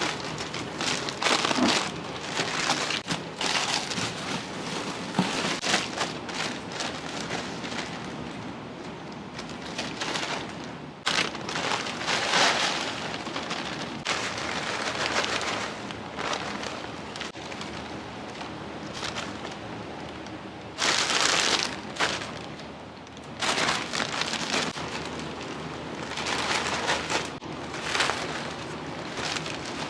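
Restaurant kitchen cooking noise: a steady hiss, like sizzling oil or running water, that swells into louder surges several times.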